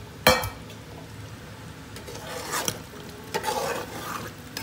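A spoon stirring thick mutton curry gravy in a metal pot, with one sharp clink against the pot at the start and scraping, sloshing stirring noises toward the end.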